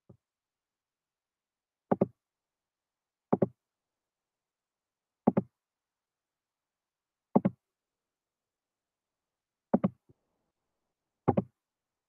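Computer mouse clicks picked up close to the microphone: six sharp clicks spaced unevenly one to two and a half seconds apart, each a quick double tick.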